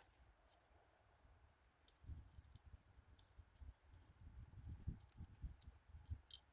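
Faint taps and small clicks of a tiny nut being handled and fitted onto a fuel pump hanger, starting about two seconds in.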